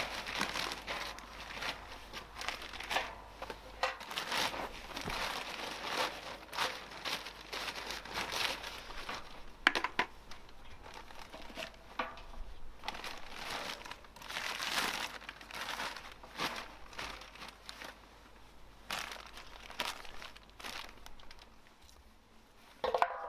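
Crinkling and rustling in irregular bursts, with a few sharper clicks, as material is handled and pressed into place.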